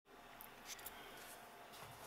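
Near silence: faint room tone with a few soft ticks in the first second.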